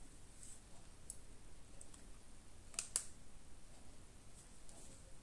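Metal spatula clinking and scraping against a stainless-steel pan while cauliflower and potato pieces are stirred in spice paste: a few light clicks, with two sharper ones in quick succession about three seconds in.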